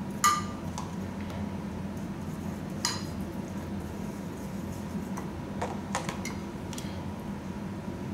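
Metal spoon clinking and scraping against a glass dish while spreading basil paste over tomato and mozzarella slices. There is one sharp ringing clink just after the start, then a few lighter, scattered clicks, over a steady low hum.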